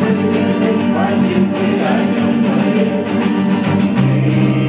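Acoustic guitars strumming chords over an electric bass guitar, with voices singing along: a small guitar ensemble playing a song live. The bass moves to a new held low note about four seconds in.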